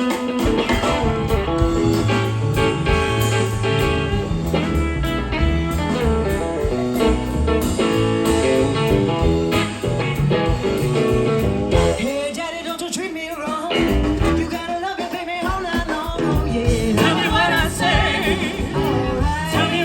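A live blues band playing with singing and guitar over a full rhythm section; the bass end drops back for a few seconds about twelve seconds in.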